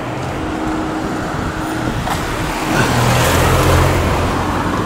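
A road vehicle's engine passing close by on the road, a steady low hum that grows louder to a peak about three seconds in and then eases off.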